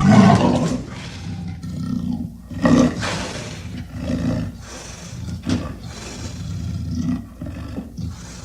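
Dragon roar sound effect: a loud roar at the very start, then a string of further, quieter roars, with sharper peaks about 2.7 and 5.5 seconds in.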